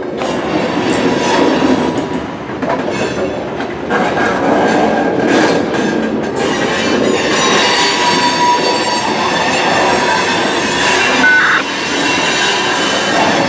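CN freight train cars rolling slowly on the track, with wheels clicking over rail joints and then squealing in several high steady tones through the second half.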